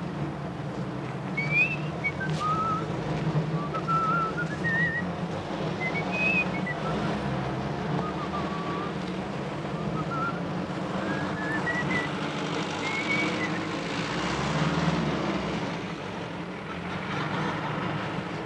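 Someone whistling a wandering tune, the notes gliding up and down, over a steady low rumble of street traffic; the whistling stops a few seconds before the end.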